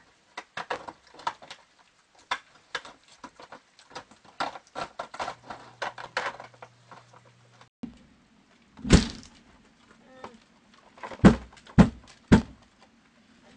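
Black bears eating dry cat food on a wooden deck: rapid, irregular crunching and smacking for the first several seconds. In the second half come a few loud thumps as the bears move about on the deck.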